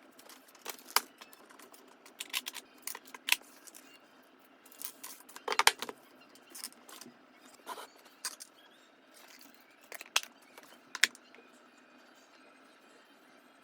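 Kitchenware being handled: dishes and utensils clink and knock irregularly, a dozen or so sharp strikes with short pauses between.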